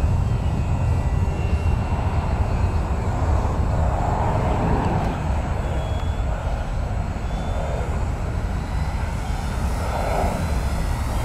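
Twin electric motors and propellers of a Twinstar RC plane passing overhead, a faint whine that swells and fades as it flies, over a loud steady low rumble.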